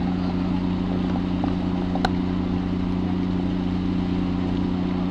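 Fishing boat's engine running steadily at idle, a constant low hum, with a single faint click about two seconds in.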